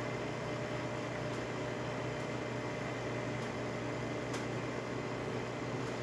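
Jura Impressa F9 espresso machine's pump humming steadily during espresso extraction, with coffee running into the cup; a normal brew cycle on a machine repaired for a brew unit that would not stop at its home and work positions.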